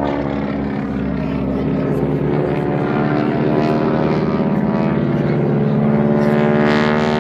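Propeller airplane engine running loud and steady overhead, its pitch sinking at first and climbing again near the end as the aircraft manoeuvres.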